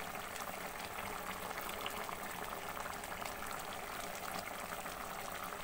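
A pot of seafood stew in a thin sauce boiling, with a steady bubbling and many small crackling pops.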